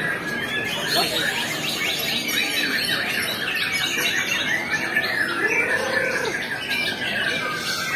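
Many caged songbirds singing at once: a dense, unbroken chorus of overlapping chirps, trills and whistles. A little past halfway, a lower tone rises and falls once, briefly, beneath them.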